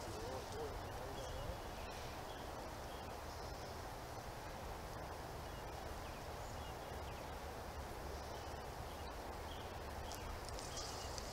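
Steady outdoor background hiss with faint, scattered bird calls.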